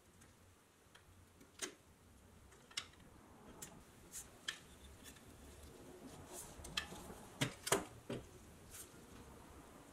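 Thin sheet-metal toy car handled in gloved hands: scattered light clicks and taps of metal, with a cluster of louder knocks near the end as the old battery is pulled from its clip underneath.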